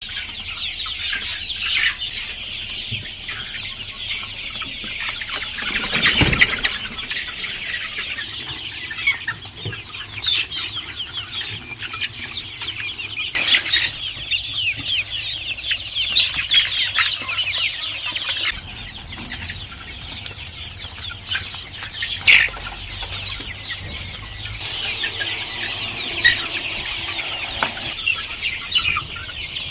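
A large flock of Sonali chickens, a dense continuous chorus of high peeping and clucking calls, with a few short bursts of wing flapping.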